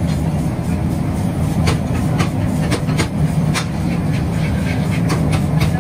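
Steady low machine drone with irregular sharp clicks and knocks.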